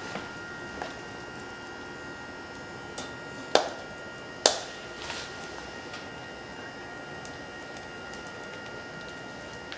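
BioLite wood-burning camp stove running, its fan giving a steady faint whine, with the wood fire crackling now and then. About three and a half seconds in, a frying pan is set down on the stove's pot support with two sharp clanks a second apart.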